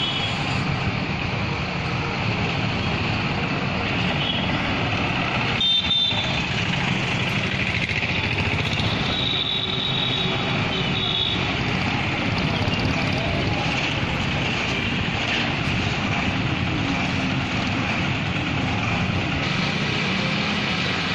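Steady motor-vehicle and road traffic noise, with short high-pitched beeping tones about six seconds in and again around ten seconds.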